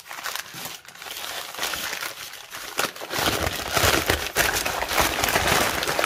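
Brown kraft paper wrapping being pulled open and crumpled by hand, a rustling crackle that gets louder about three seconds in.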